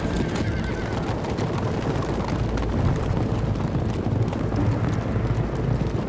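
Many horses galloping together: a dense, steady rumble of hoofbeats from a cavalry charge.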